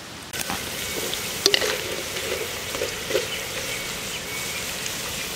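Sliced bitter gourd deep-frying in hot oil in a wok: a steady sizzling hiss with scattered pops and crackles, and a sharp click about one and a half seconds in.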